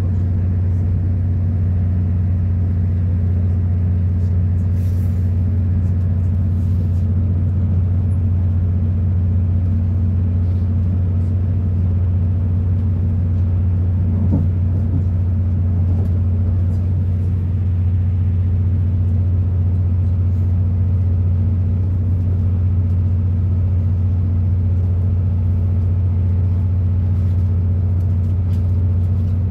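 Inside a diesel Avanti West Coast train running at speed: a steady low drone and rumble of engine and wheels on rail, unchanging throughout.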